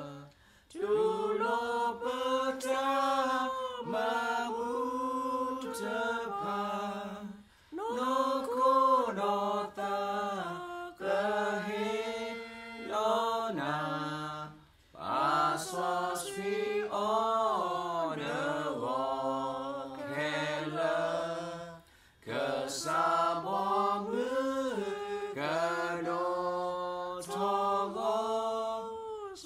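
Two men and a woman singing a hymn together without accompaniment, in phrases of about seven seconds, each ending in a short pause for breath.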